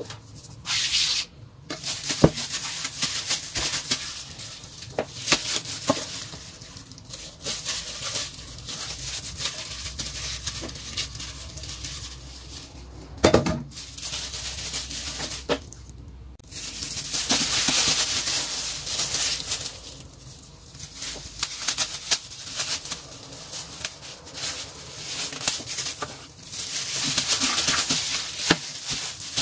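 Crinkling and rustling of thin plastic food-handling gloves as hands punch down and fold risen bread dough on a silicone baking mat, with soft squishing of the dough and a few sharp taps.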